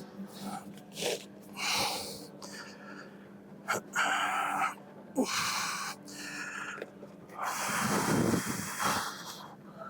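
A person breathing hard while exercising: short, sharp, irregular breaths through the nose and mouth, with a longer, louder exhale about eight seconds in. A faint steady low hum sits under it.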